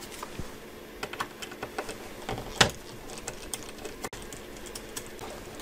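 Small irregular clicks and ticks of a precision screwdriver on the tiny screws and metal shield plate inside an iPhone SE 2020, as the screws over the display connectors are taken out. One sharper click comes about two and a half seconds in.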